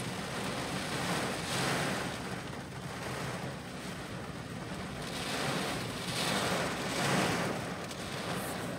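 Hurricane wind and heavy rain lashing a car, heard from inside the cabin: a steady rushing roar that surges in gusts several times.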